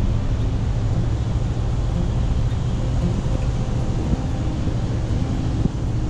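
A vehicle driving along a road: steady low engine and road rumble with wind noise, heard from a camera riding on the vehicle.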